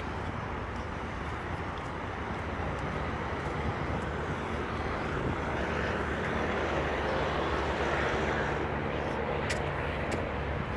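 Steady engine noise from a passing vehicle, swelling about halfway through and easing off, with a low steady hum underneath and two sharp clicks near the end.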